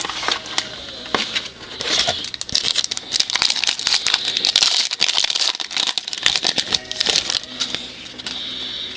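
A trading-card pack wrapper being crinkled and torn open by hand, with dense crackling and rustling that eases off near the end.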